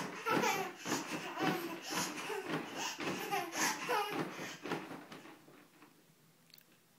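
A toddler laughing in a rapid run of short bursts while bouncing in a crib; the laughter dies away about five seconds in.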